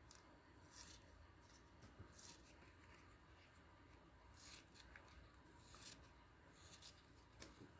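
Scissors cutting through a rubber balloon in a series of short, faint snips spread over several seconds.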